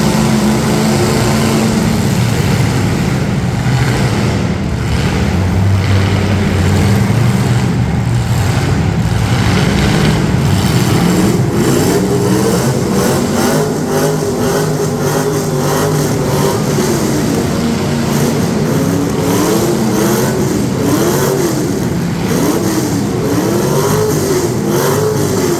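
Several demolition derby cars running their engines at once, loud and continuous. In the second half one engine revs up and down over and over, its pitch rising and falling about once a second.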